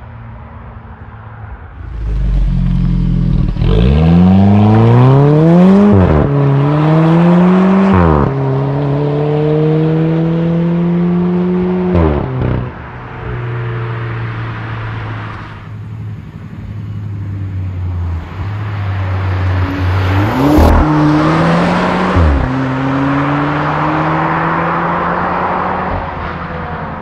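Alfa Romeo 4C's turbocharged four-cylinder accelerating hard through the gears. The engine note climbs and drops sharply at each upshift, about 6 and 8 seconds in, then eases off after a long pull. It settles steadier for a while, then climbs again with another quick upshift near 21 seconds.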